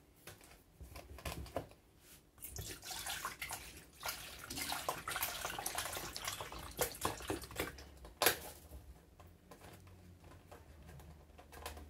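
Milk pouring from a carton into an empty stainless-steel saucepan: a steady splashing stream that starts about two seconds in and tapers off after about eight seconds, with a single sharp knock near the end of the pour.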